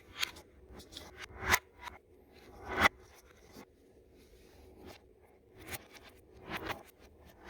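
Hands working on small hard appliance parts: scattered clicks and knocks with some scraping, the sharpest about a second and a half and nearly three seconds in.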